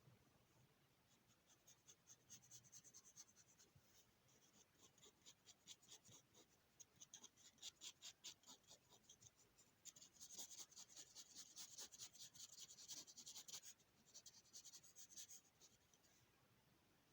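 Faint drawing strokes scratching on paper: rapid back-and-forth strokes, several a second, running into a continuous stretch of shading about ten seconds in, then a few more strokes before stopping near the end.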